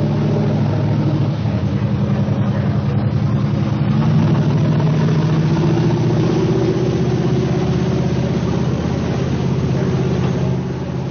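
Ship's engine running steadily: a low, even hum of several tones, with a higher tone joining about four seconds in.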